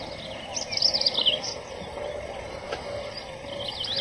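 A small songbird singing quick, high, warbling chirps in two bursts: one about half a second in that lasts about a second, and another near the end.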